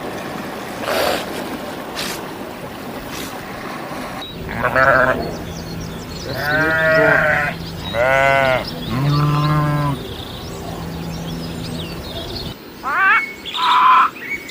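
Penguins calling: a series of drawn-out braying calls with short gaps between them. Near the end come a few short, higher chirping notes.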